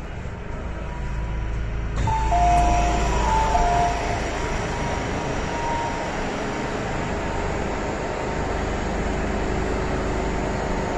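Two-note electronic chime repeating for about two seconds, starting with a sudden thud about two seconds in as the MTR M-train's doors open at a station stop. A steady low rumble and hum from the standing train runs underneath.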